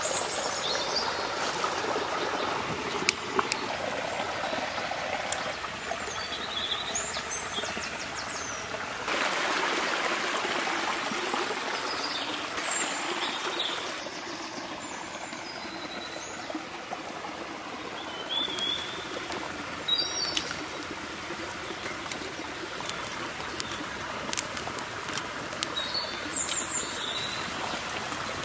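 Forest ambience of steadily running water, with birds chirping briefly now and then. Scattered light clicks come from sticks being handled and arranged for a small campfire.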